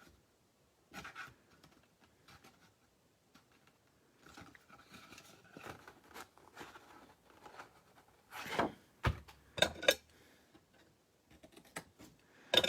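Rubber stamp being inked and pressed onto cardstock, with paper and tools handled on a tabletop: scattered light taps and rustles, then a few louder knocks about two-thirds of the way through.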